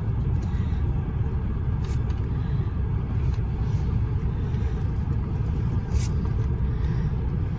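Steady low rumble of a car, heard from inside its cabin, with a couple of faint light clicks.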